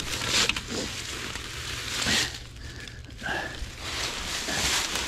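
Dry fallen leaves crunching and rustling underfoot and under hand as a hunter shifts around and reaches for a downed deer. The rustling comes in several spells about a second apart.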